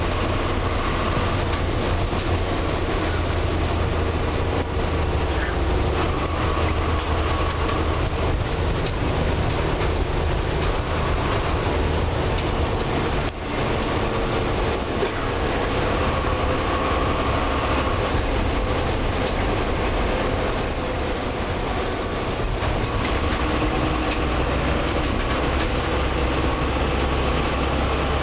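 Engine and road noise heard from inside a moving bus: a steady low drone under continuous rumble, with no break.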